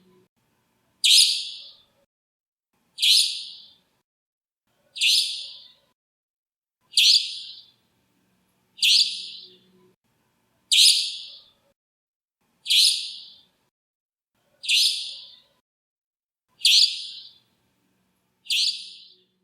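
Common nightingale calling: a short, high call repeated ten times at even intervals of about two seconds, each starting sharply and fading out.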